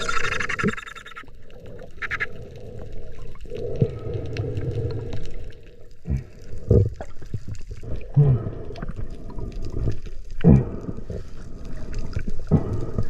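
Muffled water sloshing and gurgling around an action camera at or below the surface, with irregular low thumps and a short hissing burst in the first second.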